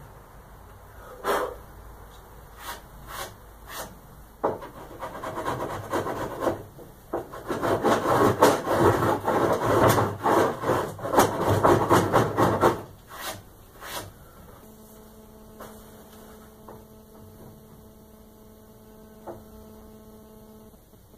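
A homemade rabbet/cheek plane with a chisel for a blade, shaving the inside cheek of a half-lap joint in wood: a few knocks, then several seconds of fast, rasping scrape strokes. After two more knocks, a steady low hum runs for several seconds and stops suddenly.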